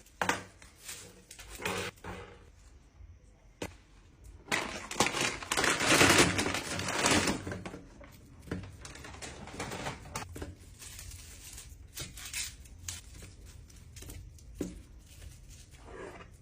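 Groceries being handled and put away: scattered clicks and knocks, with a louder stretch of rustling about five seconds in that lasts some three seconds.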